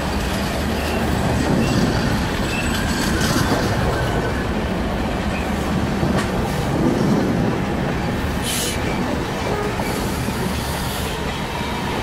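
Double-decker passenger coaches of an Indian express train rolling past on the track: a steady rumble of wheels on rails with a few clicks, and a brief high hiss about eight seconds in.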